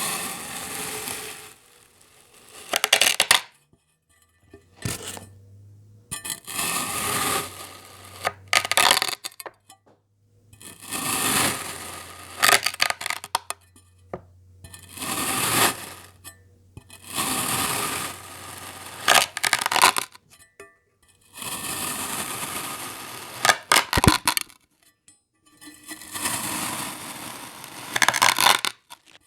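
Crunchy kinetic sand being crushed in a series of strokes, each a gritty crackling crunch lasting a second or two, with short pauses between, about a dozen in all.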